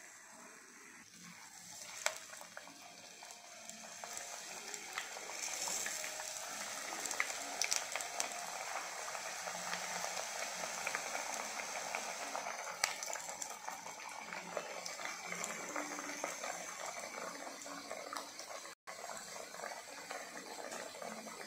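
Chekkalu, flat rice-flour crackers, deep-frying in hot oil in a kadai: a dense, steady sizzle and crackle that builds up a few seconds in, with a few sharp clicks.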